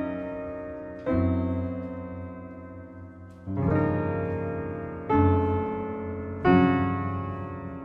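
Grand piano played in slow, full chords with low bass notes: four chords struck in turn, each left to ring and fade before the next.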